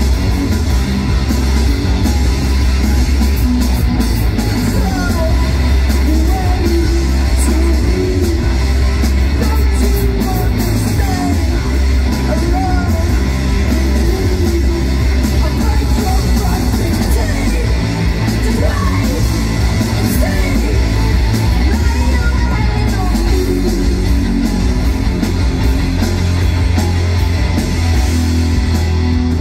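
Live punk rock band playing loud, with distorted electric guitars, bass and drums, and yelled vocals over the top.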